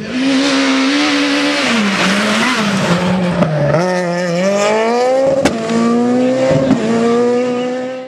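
Rally car engine at high revs through a hairpin: the revs drop off for the corner, then climb steadily as it accelerates away. Tyre noise on wet tarmac is loud in the first few seconds, and a few sharp cracks come later.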